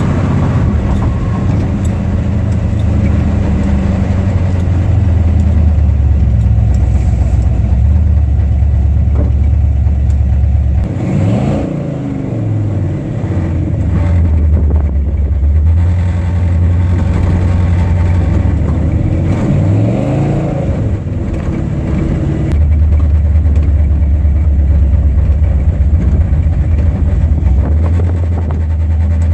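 Car engine running with a loud, steady low drone, its pitch sweeping down and back up twice, about eleven and about nineteen seconds in, as the revs change.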